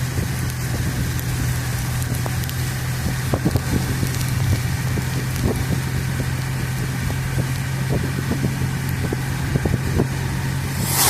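Car driving, a steady low engine and road drone with scattered light ticks and knocks, and a brief loud rush of noise near the end.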